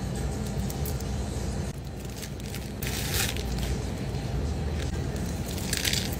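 Dry seaweed on a triangle kimbap crackling and crunching, in two short bursts: about three seconds in and again near the end as it is bitten into. A steady low rumble lies underneath.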